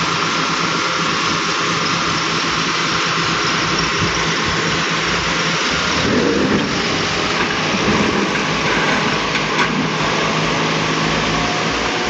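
Volvo excavator's diesel engine running steadily under a constant, dense hiss.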